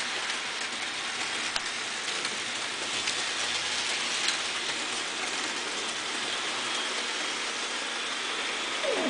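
Electric model train running on the layout's track: a steady whirring, rattling rush from its motor and wheels, with scattered small clicks.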